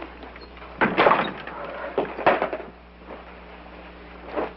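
Several knocks and thumps of luggage being handled and set down. There is a loud clatter about a second in, two more knocks around two seconds, and a single knock near the end.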